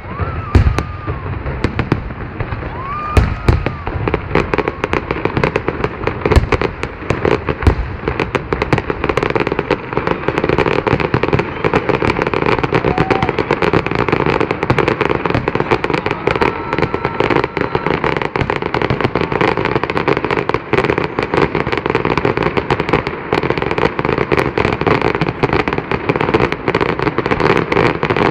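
Fireworks display going off. There are separate heavy bangs in the first several seconds, then from about eight seconds in a dense, continuous crackle of rapid pops.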